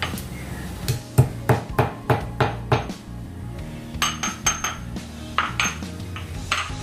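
A cardamom pod being pounded in a white mortar and pestle: a quick run of about ten knocks at roughly four a second, then a few sharper, ringing clinks.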